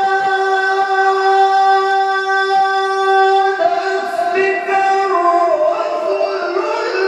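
A male qori singing sholawat into a microphone, unaccompanied: one long held note for about three and a half seconds, then an ornamented run of changing notes.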